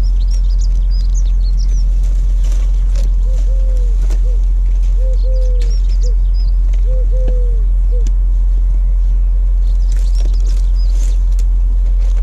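A pigeon cooing in three short repeated phrases of arched notes, with small birds chirping high above it, over a steady loud low rumble; a few faint clicks.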